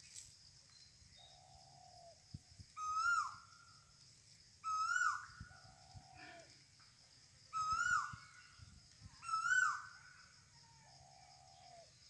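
A bird calling repeatedly: four loud, short calls, each with a quick rise and fall in pitch, alternating with three softer, lower calls that sag slightly at the end. A faint steady high-pitched drone, like insects, runs underneath.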